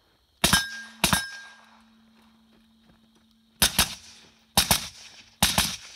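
Mark 18 AR-15-type carbine firing: two single sharp shots about half a second apart, then after a pause of over two seconds three quick double reports, each shot ringing off after the crack.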